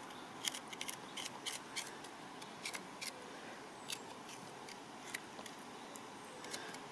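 Small knife blade scraping and nicking the skin and rough bits off a freshly dug pignut, heard as faint, irregular scrapes and ticks about one or two a second.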